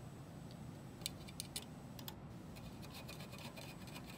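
Faint light clicks and scratches as fingers hand-tighten small gold-coloured threaded standoffs and handle the sheet-metal receiver box of a video-wall module. The clicks are scattered, bunching about a second in.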